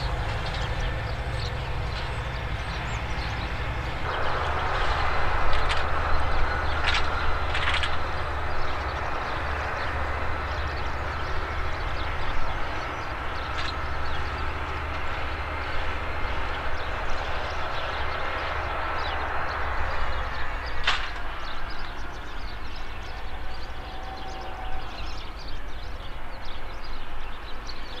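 Claas Axion 960 tractor's six-cylinder diesel engine running steadily under load while pulling an eight-furrow mounted plough with packer through the soil. A rushing hiss joins from about four seconds in until about twenty seconds, and a few sharp clicks sound, about four in all.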